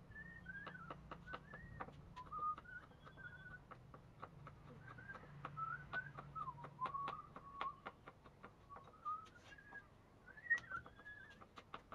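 Knife chopping on a thick wooden chopping board, sharp taps at an uneven pace, with a person whistling a wandering tune over it.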